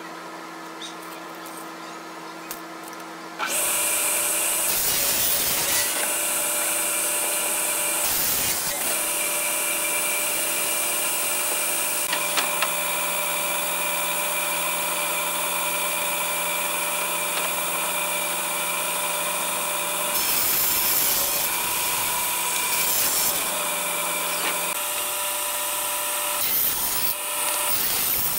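An electric power tool working wood. A steady motor hum for the first few seconds, then at about three and a half seconds the loud, hissing cut begins and runs on, with a few brief dips.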